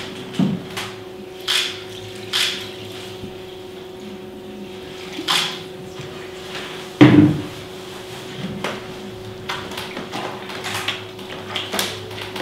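Hands working a heap of white crumbly material on a table: scattered short scuffs and knocks, with one heavy thud about seven seconds in. A steady low hum runs underneath.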